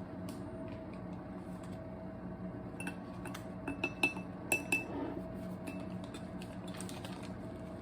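A few light clinks of cups or utensils, with a brief ringing, between about three and five seconds in, over a faint steady hum.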